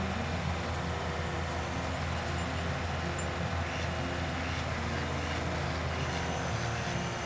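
Skid steer engine running steadily under work with the bulldozer attachment.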